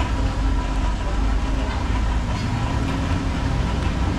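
Steady low engine rumble of road traffic, with a vehicle running nearby, continuous and without clear speech over it.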